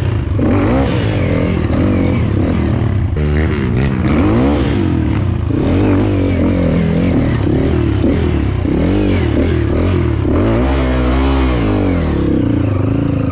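Dirt bike engine revving up and down in short throttle bursts as the bike climbs a steep, rocky trail, with the revs falling away near the end.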